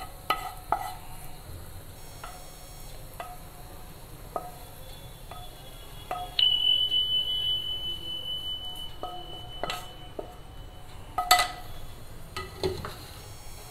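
Wooden spatula knocking and scraping in a nonstick pan while cooked corn kernels are scooped into a bowl. The knocks come about once a second, each leaving a short ring from the pan, with two louder knocks near the end. A steady high tone starts abruptly about six seconds in and stops a few seconds later.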